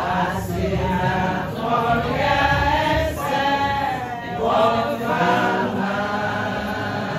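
A group of voices singing together, without instruments.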